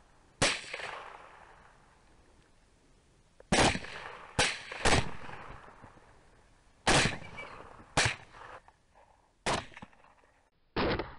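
Rifle shots: about eight sharp reports at irregular intervals, some a half second apart, each trailing off in echo.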